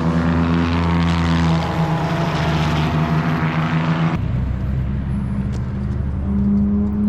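Race car engine running at steady revs, with a hiss over it. About four seconds in the sound changes abruptly: the hiss drops away and the low engine note carries on.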